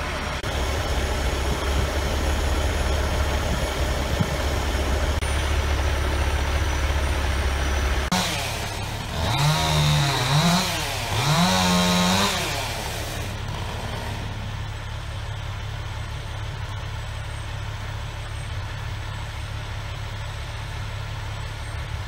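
A crane truck's engine runs steadily. About nine seconds in, a chainsaw revs up twice, rising and falling in pitch as it cuts through a felled log. The engine then runs on more quietly.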